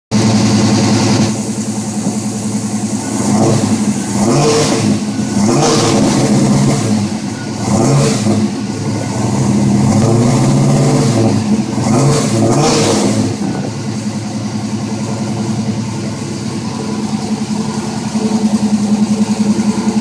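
1972 Chevrolet Chevelle's engine running through a custom exhaust, revved up and back down several times, then settling to an idle about two-thirds of the way in.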